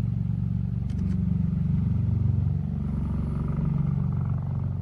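A steady, low engine drone with an even hum, like a motor running at constant speed.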